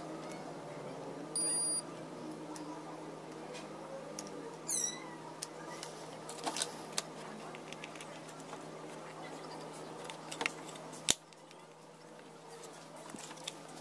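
Small clicks and taps of parts and tools being handled on an electronics workbench over a steady low electrical hum, with a short high beep about a second and a half in and a sharp click near the end.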